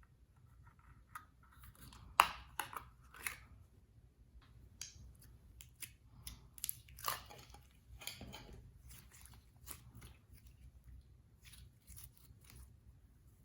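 Slime-making handling sounds: an irregular run of small clicks, snaps and crackles, with the sharpest snap about two seconds in and another cluster around seven seconds in.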